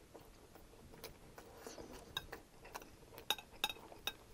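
Metal spoon scraping and clinking against a glass bowl while scooping rice: scattered light clicks, with a few sharper ringing clinks about three seconds in.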